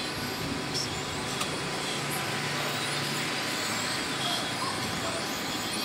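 Radio-controlled model cars racing round a course, their motors whining faintly and rising and falling in pitch as they pass, over a steady rushing background noise.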